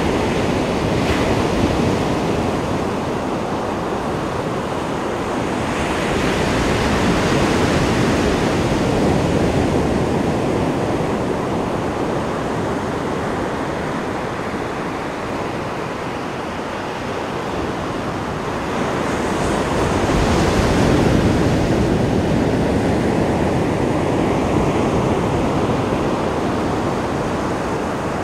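Ocean surf breaking on a beach: a continuous wash of noise that swells as waves come in, loudest about a third of the way in and again about twenty seconds in.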